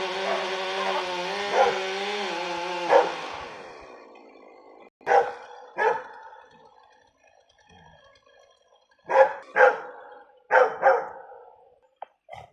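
A dog barking in pairs, six barks in all, after a drawn-out wavering sound that fades away over the first few seconds.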